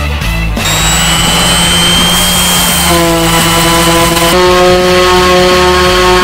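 Electric random orbital sander running on a cured epoxy-and-wood tabletop: a steady motor whine over a loud hissing grind, starting about half a second in.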